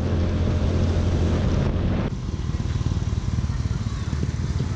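Yamaha Mio Sporty scooter engine running under way, with wind and road noise. About two seconds in, the engine note drops and the sound quietens.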